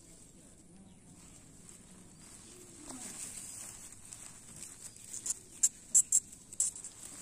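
Woven plastic sacking and its loose strands crinkling and rustling as a kitten grabs, bites and kicks at them, quiet at first, then a quick run of sharp crackles in the second half. A faint steady high hiss lies underneath.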